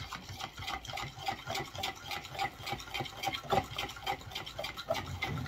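A metal spoon stirring seasonings into liquid in a plastic measuring cup, with rapid repeated clicks of the spoon against the cup and light sloshing of the liquid.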